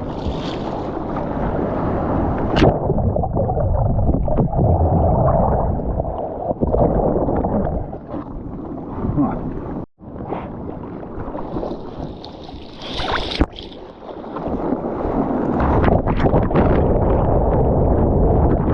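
Water rushing and sloshing around a camera out in the surf, with wind buffeting the microphone. The sound swells and fades, and drops out for an instant about halfway through.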